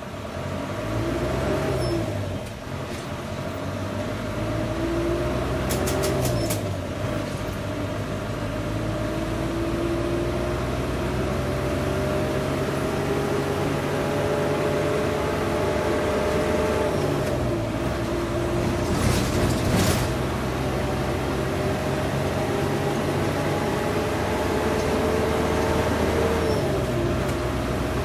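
Bus engine heard from inside the bus while driving. The engine climbs in pitch and drops back at each gear change, four times, over a steady road rumble, with brief knocks or rattles about six seconds in and again near nineteen seconds.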